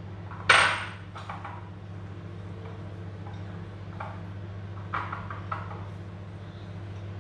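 Kitchenware clinking: one sharp, loud clatter of dishes or utensils about half a second in, then a few softer knocks and clinks, over a steady low hum.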